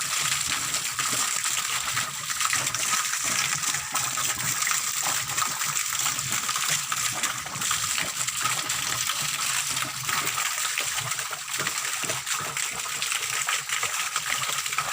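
Water gushing and splattering out of a borehole outlet pipe, driven up by compressed air from a small compressor (air-lift pumping): an irregular, spurting flow of water and air, running strong.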